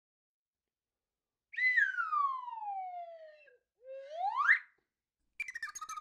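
A whistle slides down in pitch for about two seconds, then a shorter whistle slides back up. Music with plucked notes starts near the end.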